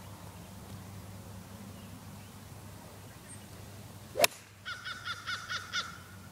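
A golf club striking the ball in a full swing, one sharp crack about four seconds in. Right after it a bird calls, a quick run of about seven short notes.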